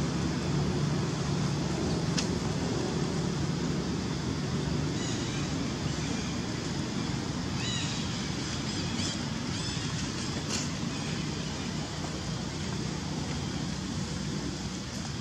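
Steady outdoor background noise with a low, even rumble, and a few faint, brief high chirps about midway.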